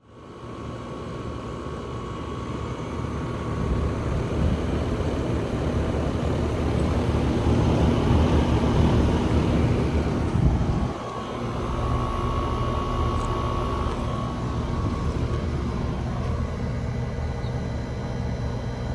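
Carrier central air conditioner condensing units running: a steady fan whoosh with the hum and faint whine of the compressor. The sound drops sharply for a moment about eleven seconds in, then carries on.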